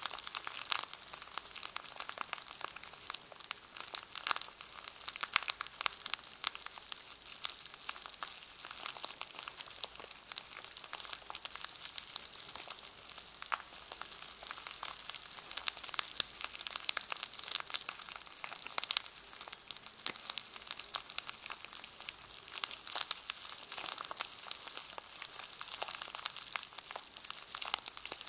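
Packaging around a brush being handled, its wrapper crinkling in a dense, steady crackle of tiny clicks.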